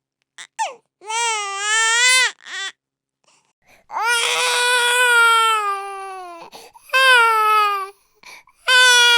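A baby crying in four separate wails, each lasting one to two and a half seconds, with short pauses and quick catches of breath between them. The longest wail starts about four seconds in and opens with a harsh edge.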